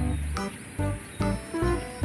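Background music with a punchy bass beat and short sharp percussion hits.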